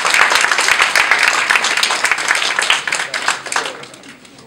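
Audience applauding: a loud, dense clatter of many hands clapping that dies away about four seconds in.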